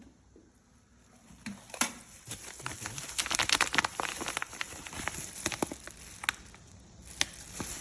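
Crinkling plastic and a run of small sharp clicks as freshly vacuum-sealed plastic pouches of sausages are handled. It starts about a second and a half in, after a near-quiet moment.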